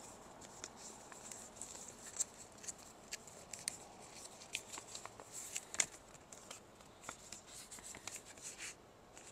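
Paper envelope being opened and handled: irregular rustling with many short, sharp paper crackles.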